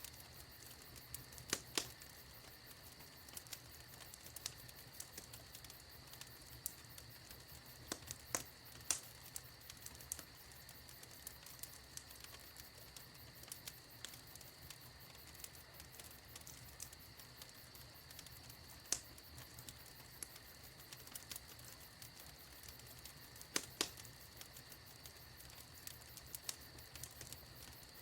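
Wood fire in a fireplace crackling: irregular sharp pops, a few of them much louder than the rest, over a faint steady hiss.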